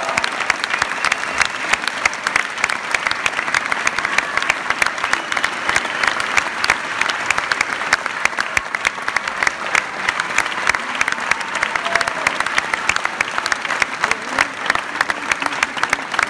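A large theatre audience applauding steadily: dense, even clapping from many hands.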